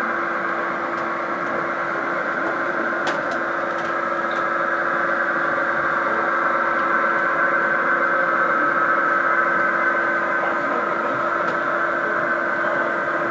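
Model train running on the layout: a steady mechanical hum and drone, with a light click about three seconds in.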